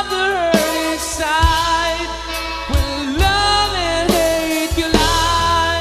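A band playing a power ballad, with a lead singer holding long, bending notes over bass, keyboards and drums.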